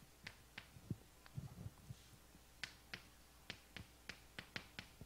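Chalk clicking and tapping against a chalkboard while writing: an irregular string of faint, sharp clicks.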